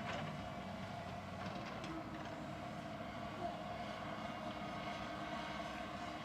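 Komatsu PC220 excavator's diesel engine running steadily under work, with a steady tone over the engine and a few light knocks in the first two seconds.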